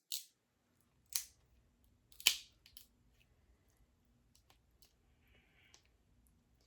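Shellfish shell cracking and snapping apart, three or four sharp crackles in the first three seconds, the loudest about two seconds in, followed by faint clicks.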